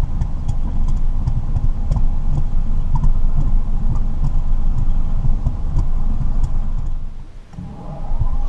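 RV generator engine cranking and running rough as it struggles to start. It dies away briefly near the end, then comes back with a rising whine. The generator is hard to start, which the owner puts down to a choke not working right or a dirty carburettor.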